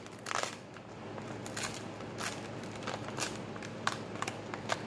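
Crinkling and crackling of paper and clear tape as a homemade paper squishy is handled and tape is pressed onto it, in scattered short crackles with a louder one near the start.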